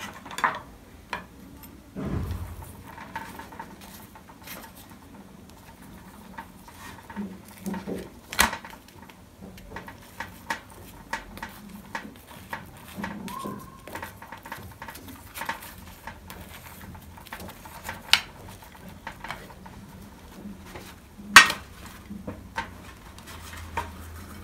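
Metal spoon clinking and scraping against a ceramic plate and bowl while butter is spread over freshly cooked gözleme, in scattered knocks. Sharper clinks come about eight seconds in and near the end, the later one loudest.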